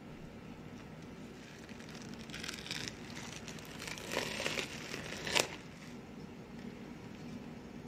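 Crinkling and rustling as a metal mesh sieve of strained yogurt in a cloth is handled over a glass bowl, in two short spells about two and four seconds in, ending in a sharp click.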